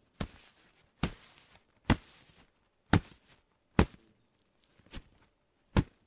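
A soft sheet being struck seven times, about once a second, each sharp hit trailing into a brief rubbing, scraping friction sound. The hit just before 5 seconds is softer than the rest.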